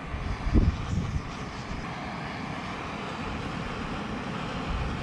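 Backpacking gas canister stove lit with a soft low thump about half a second in, then burning with a steady hiss under the cooking pot.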